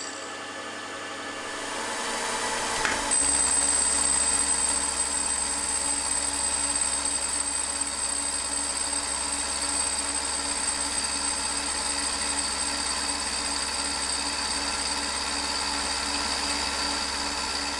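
Milling machine with an end mill taking a side cut on a cast-iron engine cylinder. The machining sound is steady and carries a high whine, growing louder about two to three seconds in and then running evenly.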